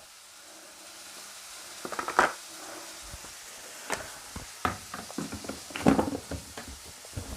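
Plastic detergent drawer of a washing machine being fitted back into place: a series of clicks and knocks, scattered through and thickest over the second half. A faint sizzle of onion frying in a pan runs underneath.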